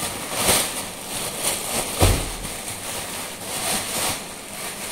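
Clear plastic packaging rustling and crinkling as hands pull it open and off a stack of notebooks, with a dull thump about two seconds in.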